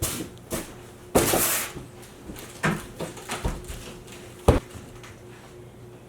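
Handling noises of unpacking a speaker: a few separate knocks and bumps with a brief rustle or scrape a little over a second in, and a sharp thump about four and a half seconds in.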